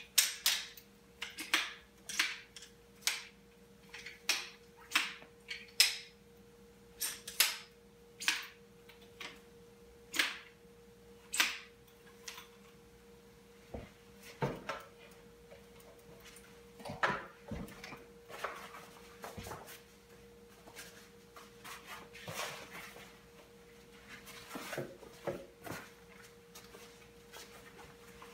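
Folding camp stool being put together: its segmented poles click into place one after another, sharp clicks about once or twice a second. After about twelve seconds this gives way to softer knocks and fabric rustling as the seat is pulled over the frame's pole ends.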